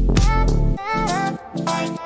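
Upbeat background music with a steady beat and bass; the bass drops out briefly near the middle while a wavering melody carries on.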